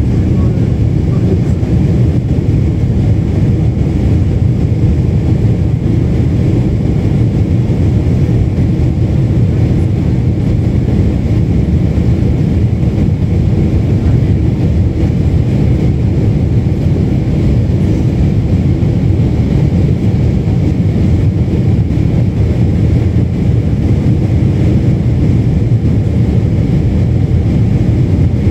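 Steady low drone of the cabin noise inside a Boeing 747-8 airliner, the even sound of its four GEnx engines and the airflow, unchanging throughout.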